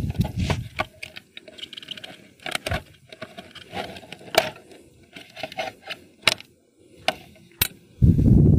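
Clicks, knocks and scraping of a motorcycle's headlight visor and its fittings being worked loose and lifted off by hand, a scattering of separate sharp clicks. A loud low rumble sets in near the end.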